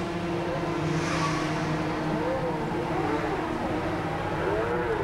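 250cc racing motorcycles passing at speed, their engine notes rising and falling as each bike goes by.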